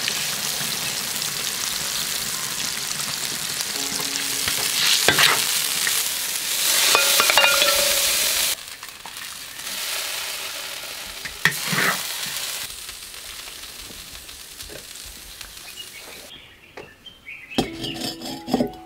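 Pig intestines and chicken pieces sizzling and bubbling hard in a wok of seasoned broth, with a few knocks of the utensil. The sound then drops as a ladle scrapes the stew into a clay pot. Near the end there is a cluster of clinks as the clay pot is set down on a charcoal stove.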